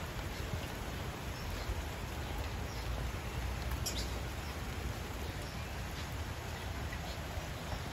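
Steady low rumbling background noise with a few faint, short, high bird chirps, the clearest about halfway through.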